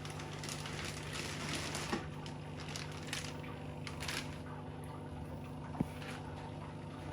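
Water splashing and sloshing in a few short bursts over a steady low hum, with a couple of sharp clicks, one of them near the end.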